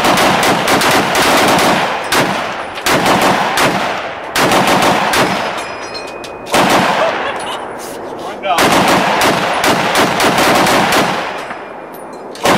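Browning Automatic Rifle firing on full automatic: several bursts of rapid shots lasting one to two seconds each, with short pauses between.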